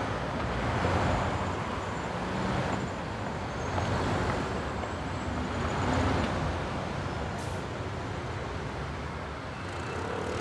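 City street traffic: cars and other vehicles passing one after another, a steady hum of engines and tyres that swells and fades with each pass.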